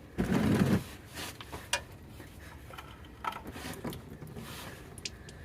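Oil filter and pliers being handled as the filter comes off: a short, loud burst of noise near the start, then scattered light clicks and knocks.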